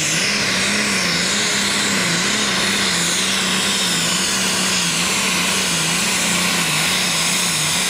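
A pulling tractor's diesel engine runs flat out under full load while dragging the weight sled, with its rear tyres spinning. It makes a steady drone that wavers slightly up and down in pitch, under a strong hiss.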